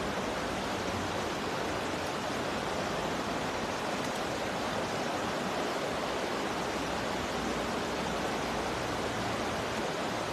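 Flowing river water rushing steadily, an even hiss that holds level without breaks.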